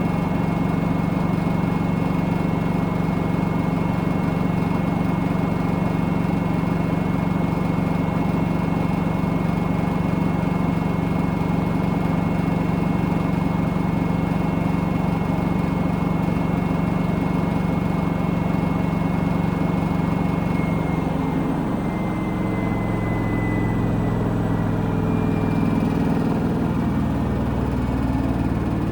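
Washing machine on its spin cycle, a steady motor hum with a thin high whine. About two-thirds of the way through, the whine and hum both drop in pitch as the spin speed changes, and it keeps running.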